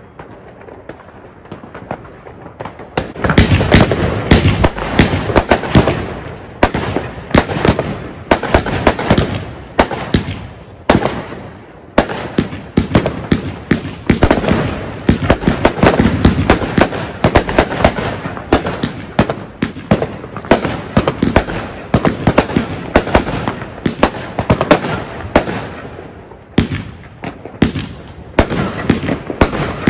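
Pyro Specials 'Kiss from Hell' consumer fireworks battery firing. About three seconds in, after a faint crackle, it breaks into a dense, rapid string of shots and crackling bursts that keeps going, with a couple of brief lulls.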